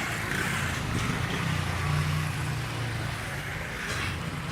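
Windstorm wind blowing hard, a steady rushing noise, with a low steady hum underneath it.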